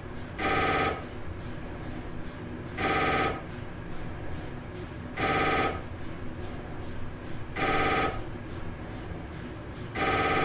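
Telephone ringing in short rings of about half a second each, repeating about every two and a half seconds, five rings in all.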